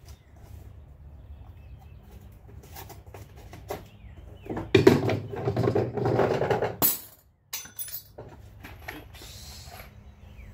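Hand tools and hardware being handled: scattered light clicks and clinks, with a louder stretch of rattling and rummaging from about five to seven seconds in.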